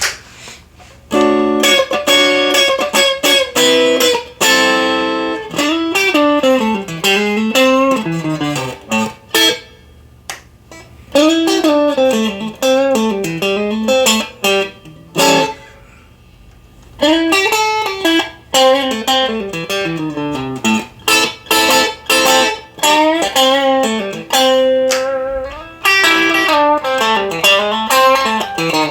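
Electric guitar played through an amplifier: struck chords, then fast single-note runs that fall and climb in pitch, broken by two short pauses.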